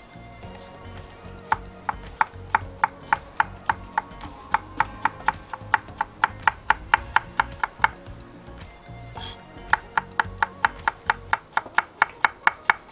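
Kitchen knife slicing a cucumber on a wooden cutting board, each cut a sharp knock on the board in a quick, even rhythm of about four or five a second. The slicing pauses for about a second and a half in the middle, then resumes.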